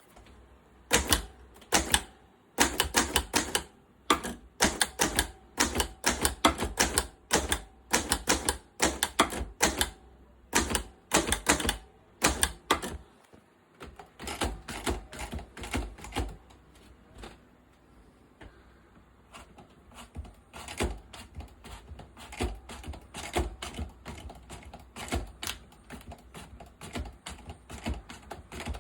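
Antique Corona typewriter being typed on: sharp key strikes in quick bursts with short pauses between them. About halfway through, after a brief stop, the strikes become softer and more continuous.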